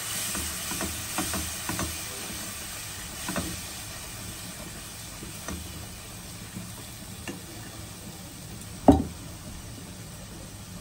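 Spice paste frying in a nonstick kadai with a steady sizzle, stirred and scraped with a silicone spatula that knocks lightly against the pan several times in the first few seconds. One loud knock about nine seconds in.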